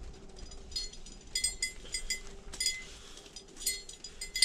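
Small bell on an ice-fishing rod jingling, a string of short rings on the same pitch that come closer together near the end.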